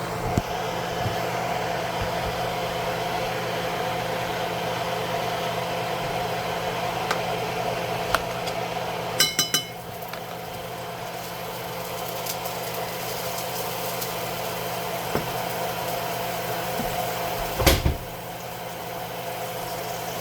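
A steady hum of a running kitchen appliance, with a few light clicks, a cluster of ringing clinks about nine seconds in, and a louder knock near the end, as of kitchenware being handled.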